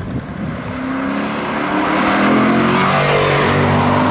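Lexus IS-F's 5.0-litre V8 engine pulling hard under acceleration, rising in pitch and getting louder over the first two seconds, then holding steady at high revs.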